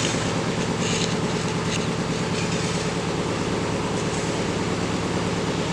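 A vehicle running steadily: an even rumble with a low hum and a few faint ticks in the first two seconds.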